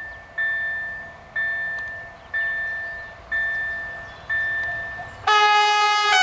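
Level-crossing warning bell striking about once a second, each stroke ringing and fading. About five seconds in, the approaching electric multiple unit sounds its horn: a loud, multi-tone blast that becomes the loudest sound.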